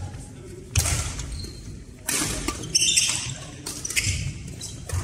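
A badminton rally in a large hall: about four sharp racket-on-shuttlecock hits a second or so apart, with players' footsteps on the wooden court, each hit echoing.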